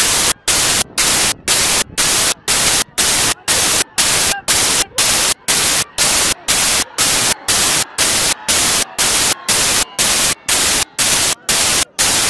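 Loud static hiss pulsing on and off a little over twice a second, each burst starting and stopping sharply.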